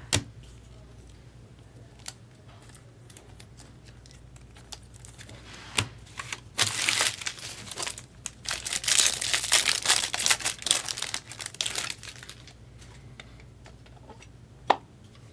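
Foil wrapper of a Bowman Chrome trading-card pack crinkling and tearing open for about five seconds in the middle, with a few single sharp clicks of hard plastic before and after.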